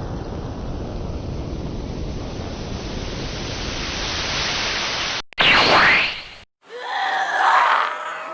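Recorded sea surf: a steady wash of waves for about five seconds, ending in a sudden cut. A short sweeping whoosh follows, then after a brief silence a zombie's groaning moan begins near the end.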